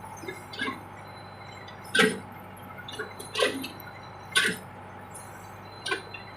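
Four short, sharp knocks spaced irregularly over a few seconds, over a faint steady hum.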